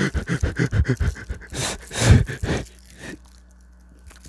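A man panting rapidly, about six short voiced breaths a second, then a few heavier breaths about two seconds in, followed by a quiet stretch.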